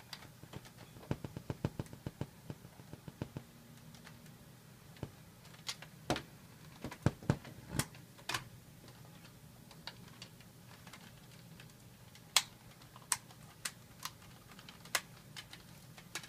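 Irregular plastic clicks and taps from handling a circuit-bent Fisher-Price talking toy, with the toy itself silent. The clicks come in a quick cluster, then louder scattered ones, then sparse ones near the end, over a faint steady hum.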